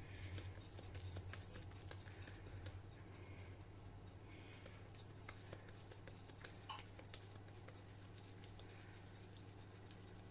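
Faint soft squishing and patting of wet hands kneading mashed potato mixture and rolling it into balls in a glass bowl, with scattered small ticks over a low steady hum.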